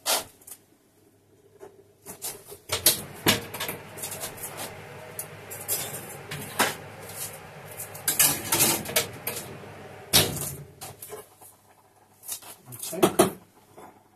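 Pots, lids and utensils clattering at a kitchen stove: a string of sharp clinks and knocks with a steady hiss under them through the middle, then a last few knocks near the end.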